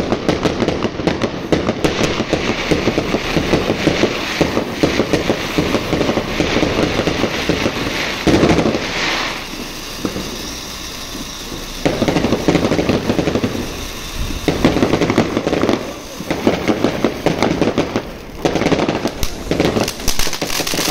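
Weco Yin & Yang fountain firework burning: a continuous spray of sparks with dense, rapid crackling over a steady hiss. The crackle drops back to a quieter, smoother hiss for about two seconds some ten seconds in, then picks up again.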